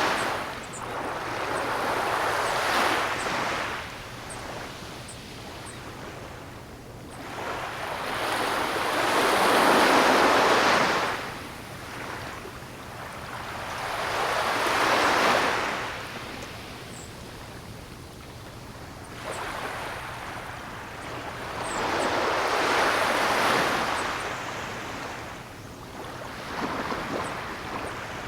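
Ocean waves washing onto the shore in slow surges, each rising and falling away over a few seconds; four swells, the loudest about a third of the way in.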